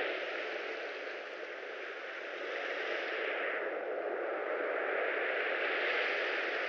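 A steady rushing noise that swells and eases slowly, with no beat or tune.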